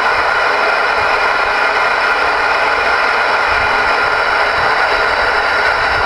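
Steady radio static from a ten-meter radio receiver's speaker: an even hiss with no signal on the channel, heard after the transmitter has been unkeyed.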